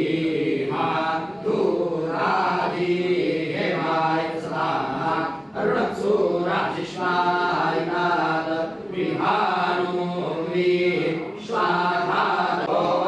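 A group of men chanting scripture together in unison in a ritual parayana recitation. The chant moves in short phrases with brief pauses for breath between them.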